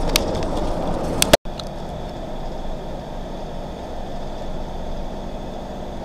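Engine and road noise inside a moving camper van's cabin, a steady rumble. Two sharp clicks come about a second in, the sound cuts out for an instant just after, then the rumble goes on a little quieter.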